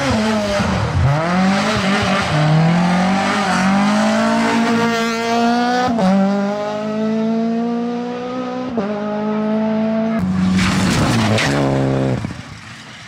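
Rally car engine at full throttle, its note climbing and breaking at upshifts about six and nine seconds in. Near the end the pitch falls away steeply and the sound drops off.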